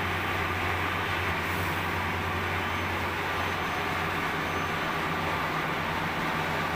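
Large-format inkjet banner printer running while it prints on flex media: a steady low hum under an even whirring hiss, with no breaks or strokes.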